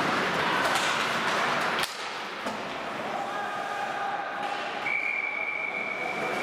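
Ice hockey game sounds in an arena: voices and rink noise, then one sharp bang about two seconds in, and after it a quieter stretch with a few steady held tones.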